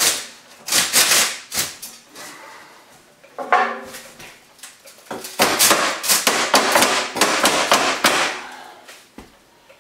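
Hammer striking the edge of an 8-inch sheet-metal stove pipe to drive it into the chimney opening. A few separate blows come first, then a fast run of taps for about three seconds.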